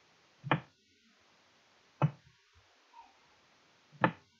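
Three single sharp clicks of a computer mouse button, about a second and a half to two seconds apart.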